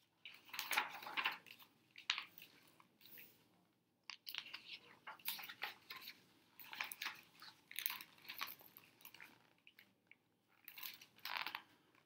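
Pages of a hardcover picture book being turned and handled: irregular soft paper rustles and crinkles.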